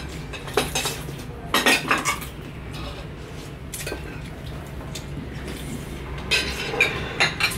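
Metal spoons clinking against ceramic bowls and plates during a meal, in scattered sharp clinks with a cluster near the end.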